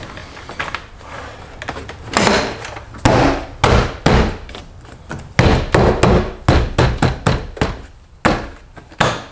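BMW E92 M3 driver's door trim panel being pushed and knocked back onto the door, a dozen or so irregular knocks and thumps as the panel is seated.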